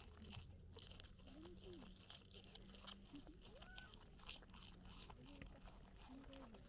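Capybara chewing a cabbage leaf: a fast, irregular run of soft, crisp crunches as the leaf is bitten and ground down.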